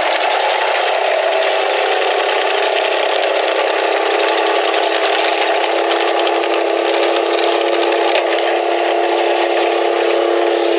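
Small engine of a walk-behind bed edger running steadily while it cuts a bed edge.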